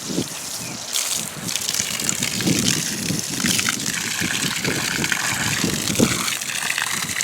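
Water from a hose gushing steadily into a livestock water tank, with gusty wind buffeting the microphone.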